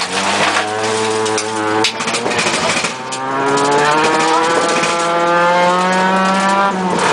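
Ford Escort RS2000 rally car's four-cylinder engine, heard from inside the cabin under hard acceleration on a gravel stage, with steady tyre and gravel noise. The revs hold for about two seconds and break off, then climb steadily for several seconds before dropping sharply near the end, as at a gear change.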